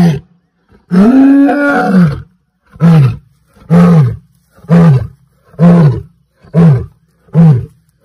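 Male lion roaring: a long roar about a second in, then a run of six short roars about one a second, each dropping in pitch. These are the closing calls of a lion's roaring bout.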